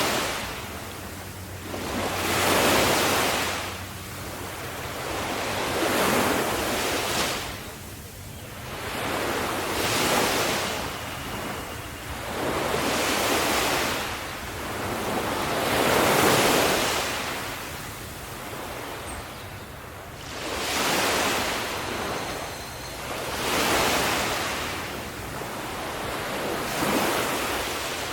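Sea waves breaking and washing on the shore, a steady surge of surf that swells and falls back roughly every three seconds.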